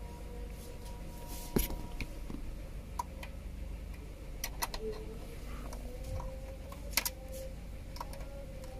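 Scattered light clicks and taps as a USB cable and phone are handled and plugged into a car armrest's USB port, the sharpest about one and a half seconds in, over a steady low hum.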